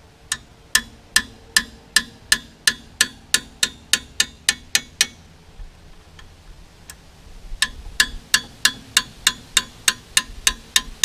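Ball-peen hammer tapping a box-end wrench on a seized bolt in a cast iron radiator top tank: sharp ringing metallic clinks, about three a second, pausing for a couple of seconds midway, then resuming. The tapping shocks the seized bolt to loosen it, in place of an impact wrench.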